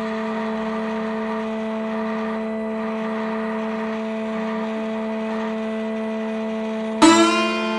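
Ambient drone music: a chord of steady held tones sustains evenly, then a plucked guitar chord rings in about seven seconds in.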